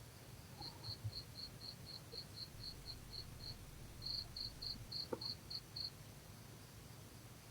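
Faint insect chirping: short high chirps about four a second in two runs, broken by a brief pause near the middle, over a low steady hum.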